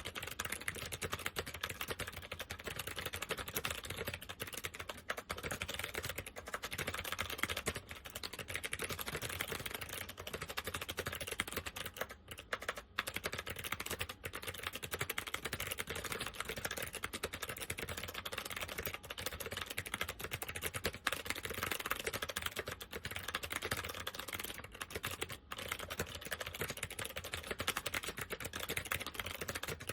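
Fast, continuous typing on an SMK 2269 keyboard with second-generation SMK clicky switches, a dense patter of sharp key clicks. The switches are in worn, uncleaned condition.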